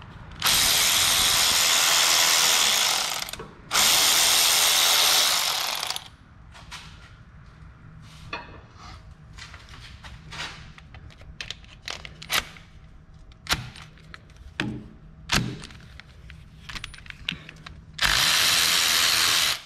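Cordless electric ratchet running in three bursts of a few seconds each, two in the first six seconds and one near the end, spinning out the starter's 13 mm mounting bolts. Between the bursts, scattered sharp metallic clicks and knocks of tool and bolt handling.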